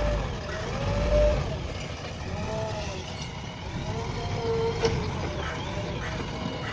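JCB 3DX backhoe loader running, with a deep rumble in the first second and a whine that rises and falls in pitch several times as the machine works.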